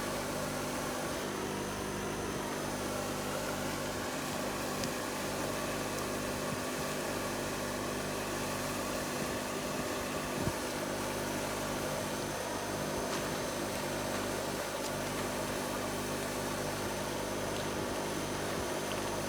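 Steady mechanical drone of a running motor, even and unbroken, with one faint click about ten seconds in.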